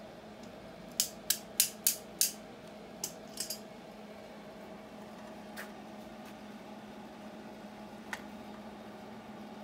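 Stick (arc) welding on a bicycle frame: a quick run of five sharp clicks about a second in, as the electrode is tapped against the frame to strike the arc. A few scattered clicks follow, all over a steady electric hum.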